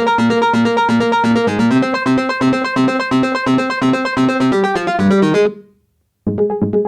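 Electronic music track: rapidly repeated synthesizer and electric-piano notes in a fast, steady pulse. It cuts off abruptly about five and a half seconds in, falls silent for under a second, then starts again.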